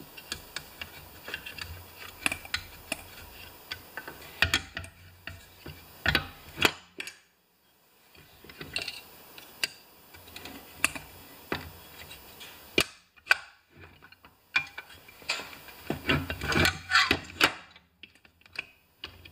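Hand tools and small parts clicking, tapping and scraping against a chainsaw's housing during hand assembly, in irregular sharp knocks. There is a brief near-silent lull about seven seconds in and a busier run of clicks near the end.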